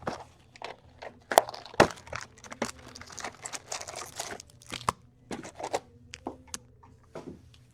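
Packaging of a retail box of hockey trading cards being torn open by hand: irregular crinkling, rustling and tearing with many short, sharp crackles.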